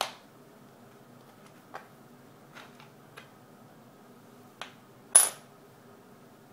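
Canadian silver half-dollar coins clicking against each other and the wooden table as they are picked up and set down. There is a sharp click at the start, a few light clicks over the next few seconds, and a louder clink with a brief high ring about five seconds in.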